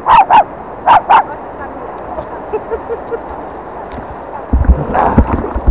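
A dog barking four times, in two quick pairs about a second apart, over a steady rush of water and wind. Near the end there is heavy low buffeting and splashing as the small jet boat meets broken surf.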